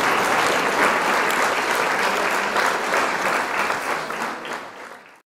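Congregation applauding with many hands clapping at once; the applause thins out and the recording cuts off abruptly about five seconds in.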